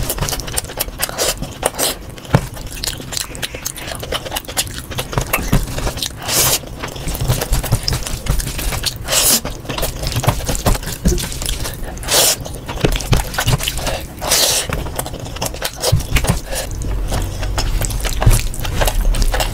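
Close-miked eating sounds sped up to double speed: fingers squishing and scraping rice and mutton curry on a metal tray, with chewing and mouth noises. The clicking is dense and irregular, with a few louder short bursts.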